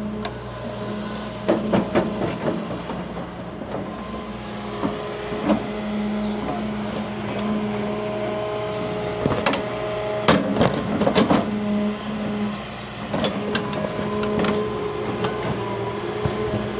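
Large diesel excavator running at a steady engine note while it works, with repeated sharp clanks and knocks, several in quick succession about ten seconds in.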